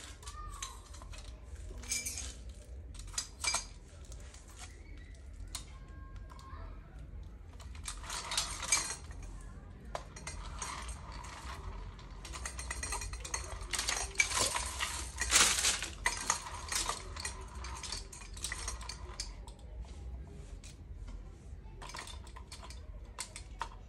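Stainless-steel knives clinking and scraping against a metal rotating knife stand as they are slotted in and moved, with many short clicks and denser stretches of scraping and rustling in the middle.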